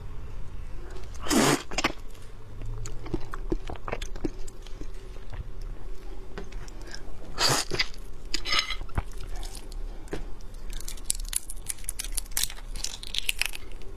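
Close-miked crunching and crackling of a raw red prawn's shell being broken apart and peeled by hand. A few separate loud cracks come first, then a quick run of small crackles near the end.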